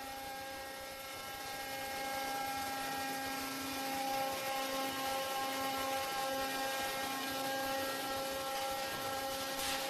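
Transfer molding press running with a steady hum while the closed mold holds the plastic under heat and pressure to cure. The hum grows slightly louder about two seconds in.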